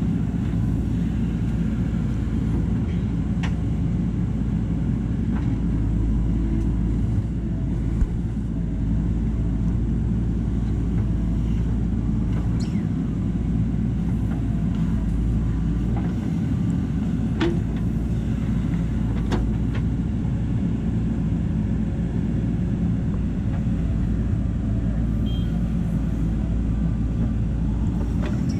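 Diesel engine of a JCB backhoe loader running steadily at work, with a deep rumble and a few sharp clicks scattered through.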